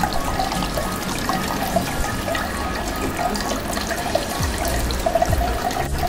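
Water from a small tabletop cement fountain, driven by a submersible pump, pouring steadily in a thin stream from a clay pot and splashing into the basin below, with background music.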